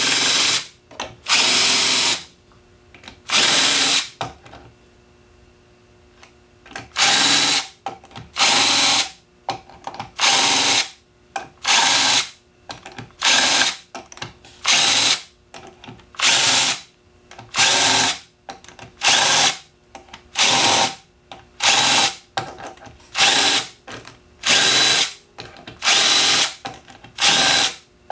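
Cordless drill with a countersink bit chamfering the edges of drilled holes in a board, spinning up in short bursts of under a second, about one every second and a half. There is a pause of about three seconds around four seconds in.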